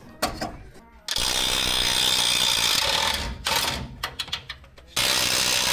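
Power tool running on a fastener in two runs of about two seconds each, with irregular clicking and rattling between them.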